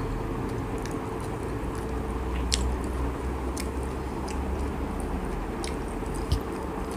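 Closed-mouth chewing of a banana spring roll (popia pisang), with scattered soft wet mouth clicks over a faint steady hum.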